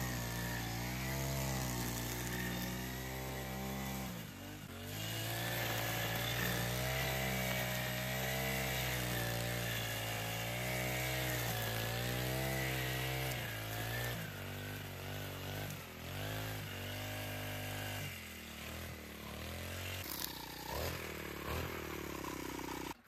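An engine running, its speed rising and falling again and again.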